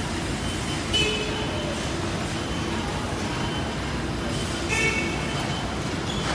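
Steady machinery noise from an automatic rotary-arm pallet stretch wrapper and its roller conveyor line, with two short high-pitched sounds, about a second in and again near the five-second mark.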